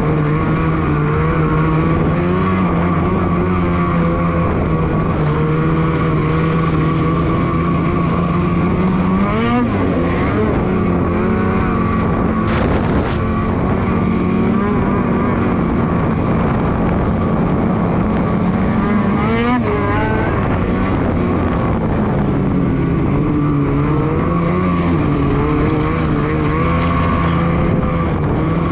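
Polaris Switchback Assault 850's two-stroke twin engine running under way as the snowmobile rides across open snow, with a steady drone and the pitch swinging up and back down briefly twice, about a third and two thirds of the way through.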